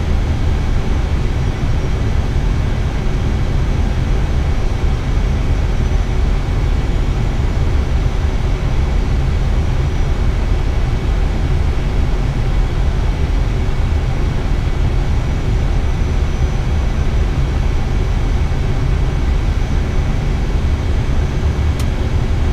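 Steady flight-deck noise of an Airbus A320 on final approach: a loud, even low rumble with faint steady high whines over it. A few faint clicks just before the end.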